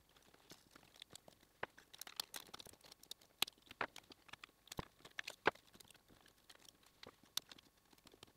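Faint, irregular clicks and scrapes of plastic terminal blocks and relay sockets being pushed along a metal DIN rail in a control cabinet, with wires rustling against them.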